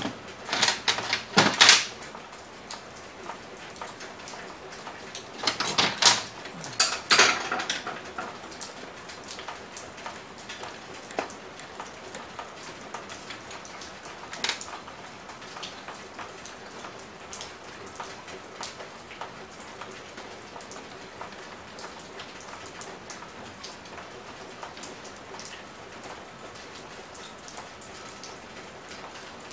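Metal hand tools and pump parts clinking and clanking on a workbench during assembly: a few loud clanks in the first two seconds and again about six to seven seconds in, then faint scattered ticks of light handling.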